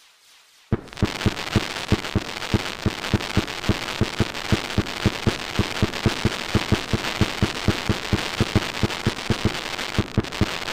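Fireworks going off in rapid succession: a dense crackle with sharp booms at an even pace of about four a second, starting suddenly under a second in.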